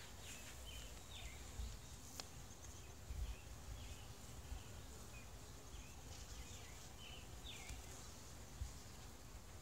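Faint outdoor ambience: a small bird giving short chirps, about one a second, over a low rumble.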